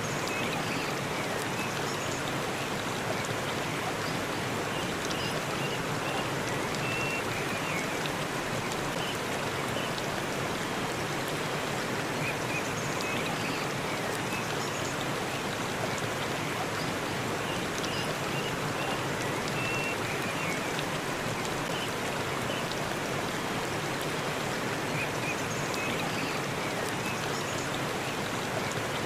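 Waterfall running steadily, an even, unbroken rush of falling water, with faint short high chirps now and then.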